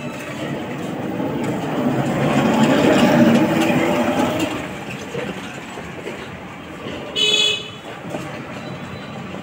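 A motor vehicle passing, its sound swelling and fading over a few seconds, then a short, high-pitched horn toot about seven seconds in.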